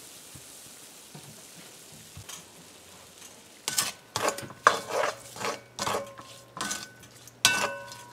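Washed shrimp hissing faintly in a hot metal karahi as their water cooks off. From about three and a half seconds in, a silicone spoon stirs and scrapes them around the pan in quick strokes, about two a second, and the metal rings briefly with each stroke.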